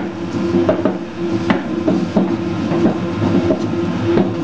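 Commercial dough mixer running as it kneads bread dough: a steady motor hum with irregular knocks as the heavy dough turns and hits the bowl.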